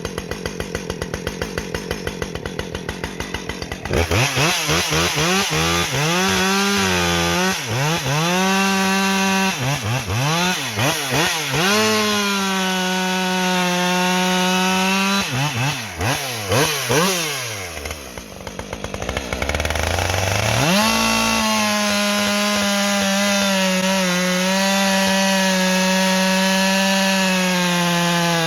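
Two-stroke gas chainsaw idling, then opened up about four seconds in, its engine revving and sagging again and again as it cuts into wood. Past the middle it drops nearly to idle, then comes back to a steady full-throttle whine, its pitch dipping a little under the cut.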